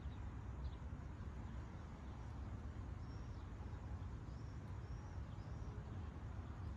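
Seaside outdoor ambience: a steady low rush of sea and air, with a few short high bird chirps, most of them in the second half.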